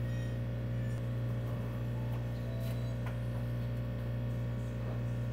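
Steady low electrical hum, with a few faint ticks.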